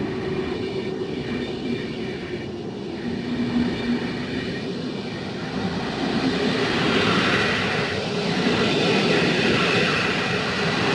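PKP Intercity passenger coaches rolling past as a train pulls out of a station: a steady rumble of wheels on rails that grows louder over the second half as the train picks up speed.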